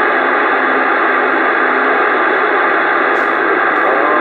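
CB radio static hissing steadily and loudly through the receiver's speaker with the squelch open, as a weak, distant station keys up and is lost in the noise.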